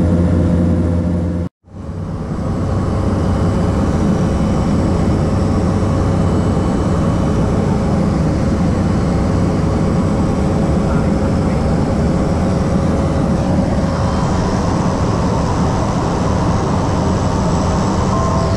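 Light propeller plane's engine and airflow running steadily, heard from inside the cabin in flight. The sound cuts out for a split second about a second and a half in, then carries on.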